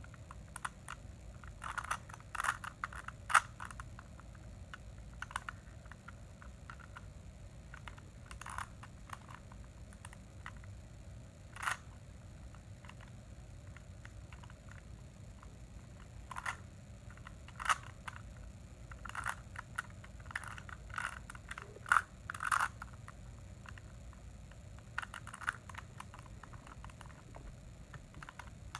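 Plastic Rubik's Cube being turned by hand: irregular clicks and short scraping rattles as the layers twist, in clusters with pauses between, over a low steady hum.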